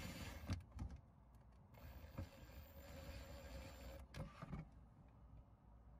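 Cordless drill/driver driving a screw through a plastic toggle into a plastic planter base: the motor whirs faintly until about half a second in, then again for about two seconds from near the two-second mark. A few small clicks and knocks fall between the runs.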